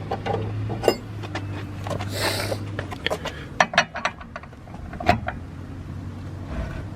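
Lug wrench knocking and clicking against a car wheel's lug nut as it is worked to loosen it: a series of sharp metal knocks. There is a short rushing scrape about two seconds in, over a low steady hum that stops about three seconds in.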